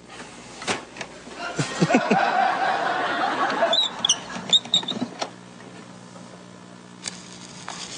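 Studio audience laughing for about two seconds, then a few short high squeaks and a faint steady hum.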